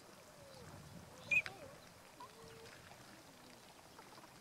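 Flock of tundra swans calling softly: a low, overlapping murmur of short gliding calls, with one brief, sharper high call about a second in.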